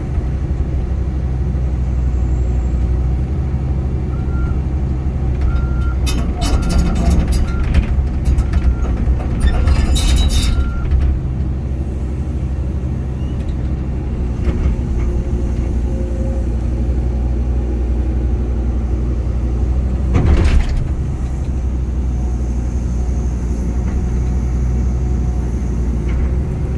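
Cat 320CL excavator's diesel engine running steadily. From about 4 to 11 s there are short high beeps about twice a second, with a brief hiss near 10 s, and a single loud clank about 20 seconds in.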